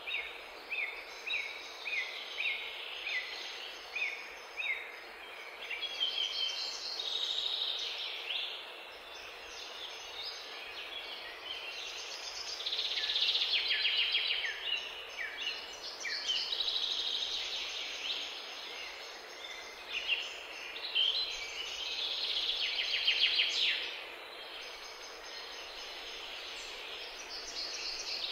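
Small songbirds singing: a string of short falling notes about twice a second, then longer, rapid trilling phrases.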